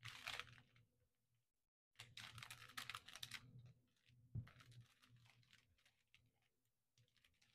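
Faint crinkling and clicking of small plastic bags of diamond painting drills being handled, in short bursts, with a soft knock about four seconds in.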